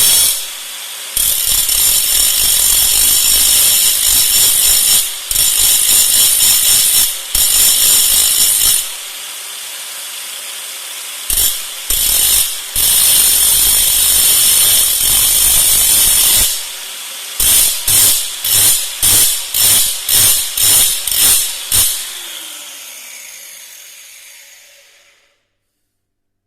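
An electric power tool run in long bursts of several seconds, then blipped on and off about twice a second. It winds down and stops near the end.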